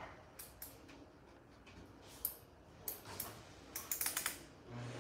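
A few light clicks and taps, with a quick cluster of them about four seconds in. Just before the end a heavy-duty high-velocity dog dryer switches on and spins up, a low steady hum under a rising rush of air.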